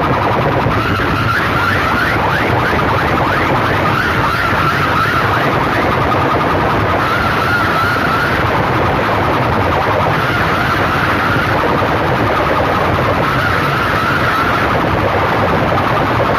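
Banks of horn loudspeakers from rival sound systems playing at full power, giving a loud, steady, distorted wall of sound. A wavering high tone comes and goes every few seconds over it.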